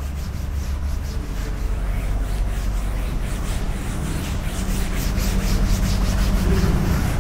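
Writing on a board: a run of short scratching strokes, over a steady low hum.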